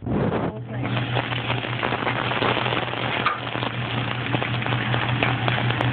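Chicken, salmon and vegetables sizzling on a hot teppanyaki griddle: a steady frying hiss with scattered small crackles, over a steady low hum.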